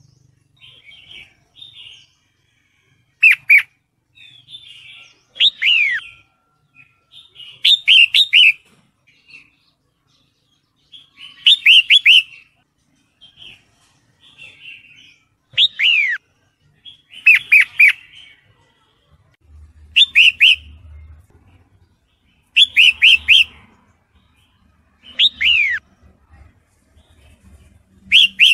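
Red-whiskered bulbul calling, presented as a female in breeding condition calling for a male. Short clusters of two to four quick whistled notes sliding down in pitch come every two to three seconds, with softer chatter between them.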